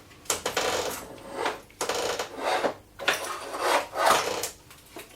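Bicycle fork steerer sliding up through the head tube into the headset bearings: metal scraping and rubbing in four short bursts.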